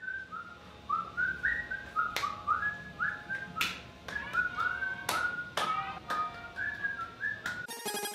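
A person whistling a tune in short stepped notes, with several sharp knocks as hard plastic 3D-printed figures are set down on a shelf. Music cuts in just before the end.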